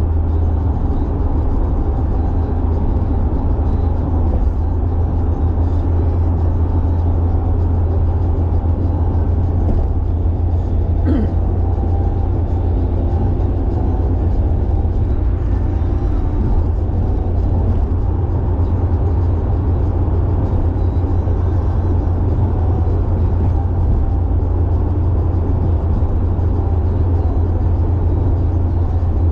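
Carburetted Nissan Silvia cruising at steady speed on an expressway, heard from inside the car: a steady low engine and road-noise drone that doesn't change in level.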